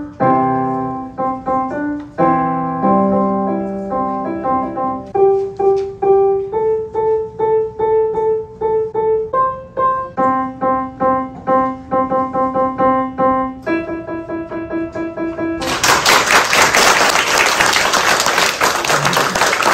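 A child playing a simple piece on a digital piano, with separate notes and chords at a steady, moderate pace. About sixteen seconds in the playing stops and the audience applauds.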